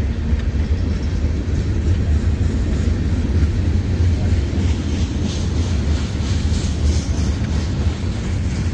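Freight train cars rolling past at a grade crossing: a steady low rumble of steel wheels on the rails. Faint high clicks come through around the middle.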